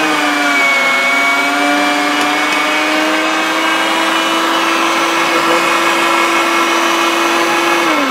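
Anko 300 W electric meat mincer running and grinding short-cut bacon: a steady motor whine whose pitch dips about half a second in as the bacon loads it, then holds steady. At the very end the pitch falls as the motor starts to wind down.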